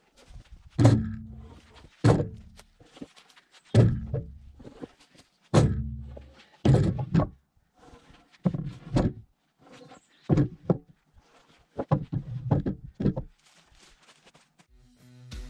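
Pointed wooden fence posts knocking and thudding against each other as they are lifted off a stack and dropped onto a load. About a dozen heavy knocks come at irregular intervals.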